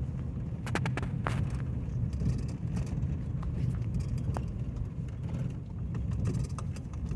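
Off-road truck driving slowly along a rough, muddy trail: a steady low engine and driveline rumble, with scattered knocks and rattles as it bumps along.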